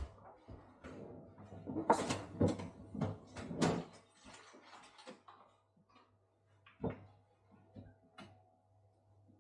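Kitchen clatter: a run of irregular knocks and clinks from things being handled and set down on a wooden worktop, then a single sharp knock and a smaller one near the end.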